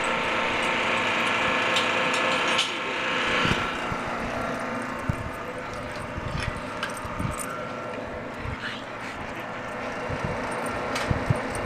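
A steady machine hum with a whine of several pitches, loudest for the first three and a half seconds and then fading to a lower hum. Scattered knocks and clinks follow, the kind made by a chain-link gate latch being handled.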